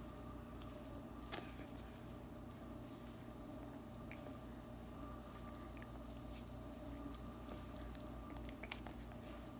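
A baby gumming and sucking on a soft piece of peach: faint wet chewing and squishing with a few small mouth clicks, over a steady hum.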